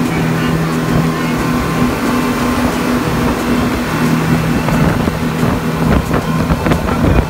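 Speedboat's bank of outboard motors running steadily at speed, with rushing wind and water noise, heard from inside the covered passenger cabin. A few short knocks near the end.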